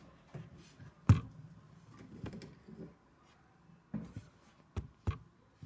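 A few scattered sharp knocks and clicks from objects being handled, the loudest about a second in, with quiet stretches between.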